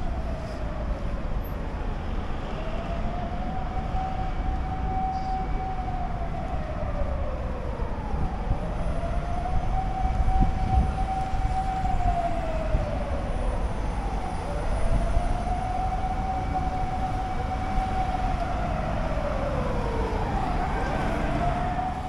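An emergency vehicle's siren wailing in slow cycles, each rising quickly, holding, then sliding down over about six seconds, over a low rumble of city traffic.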